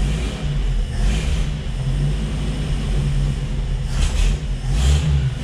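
Jeep CJ5's AMC 232 inline-six running just after starting, with a steady rumble that swells briefly near the end.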